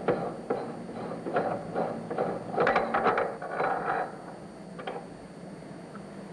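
Threaded steel parts of a marine diesel fuel valve being unscrewed by hand in a vise: short metal scraping strokes about two a second, easing off after about four seconds, then a few light clicks as the part comes free.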